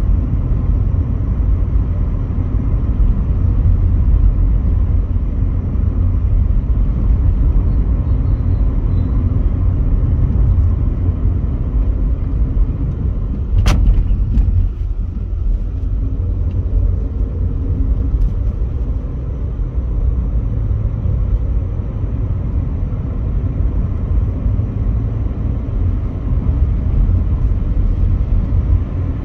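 Inside the cabin of a Volkswagen Polo GT TSI while driving: a steady low rumble of engine and road noise. A single sharp click sounds about fourteen seconds in.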